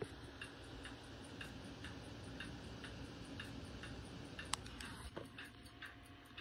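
A desk clock ticking steadily, about two ticks a second, over a faint steady hiss, with one sharper click about four and a half seconds in.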